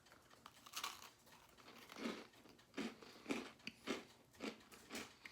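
Faint, irregular crunching noises, about seven short bursts spaced unevenly over a few seconds.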